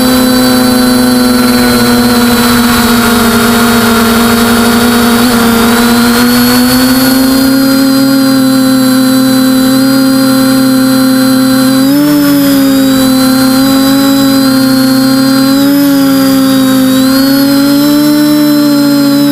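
TBS Discovery quadcopter's four brushless motors and propellers running in flight, heard close from the airframe: a loud steady whine made of several close pitches. About twelve seconds in the pitch starts wavering up and down with throttle changes.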